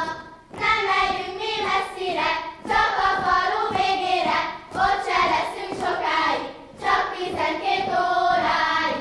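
A group of children singing a Hungarian folk song together for a ring-dance singing game, in short phrases of about two seconds with brief breaks between them.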